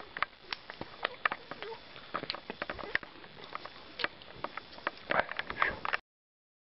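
Irregular light clicks and taps over a faint hiss, thickest near the end, stopping abruptly about six seconds in.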